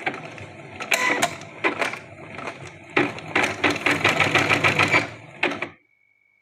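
Janome Secio computerized embroidery machine stitching, a fast rhythmic needle clatter in runs with quieter stretches between. The stitching stops abruptly near the end.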